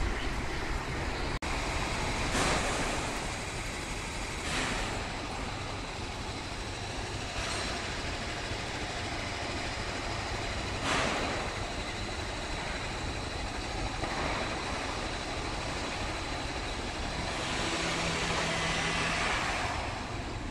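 Road traffic passing by: a steady rumble with vehicles swelling past every few seconds, the sharpest one about halfway through and a longer, heavier pass near the end.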